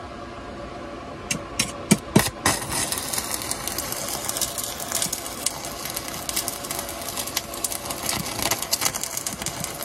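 Stick (arc) welding with a 316 stainless electrode on thin-walled stainless box section: the rod is scratched against the work four times to strike the arc, then about two and a half seconds in the arc catches and crackles steadily.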